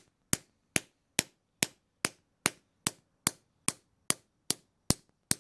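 Steel hinge leaf struck with a 2-pound rounding hammer over a leather sand bag, sharp ringing blows in an even rhythm of about two and a half a second, thirteen in all. These are light shots that bend the hinge cold to a radius.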